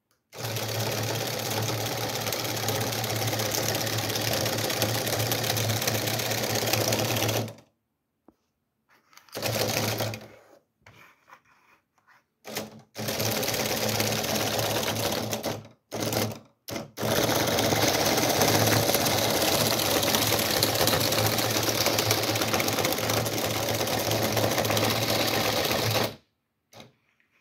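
Electric motor and mechanism of a LEGO Technic dual water pump model running with a fast, steady mechanical clatter and buzz. It runs for about seven seconds, cuts out, sputters back in several short bursts, then runs steadily for about nine seconds more before stopping. The owner puts the poor running down to a damaged wire.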